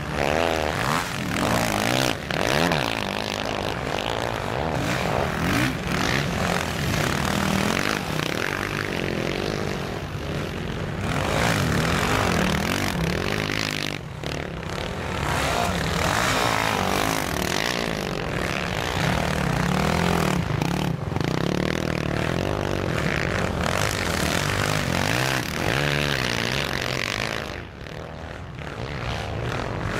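Several racing quad bikes' engines buzzing and revving together, their pitch rising and falling as the riders throttle on and off.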